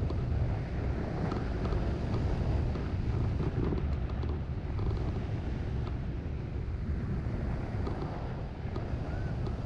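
Airflow rushing and buffeting over the microphone of a wing-mounted camera on a hang glider in flight, with a few faint scattered ticks.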